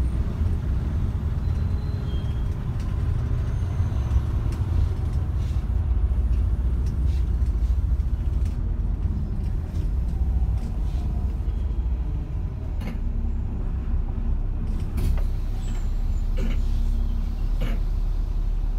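Steady low rumble of a moving bus heard from inside: engine and road noise, with a few short clicks and rattles.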